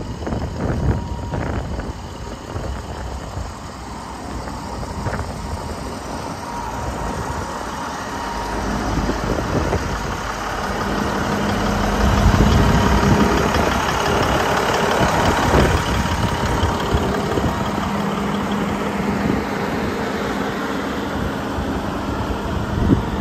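Volvo A40F articulated dump truck's 16-litre six-cylinder diesel idling steadily, louder about halfway through.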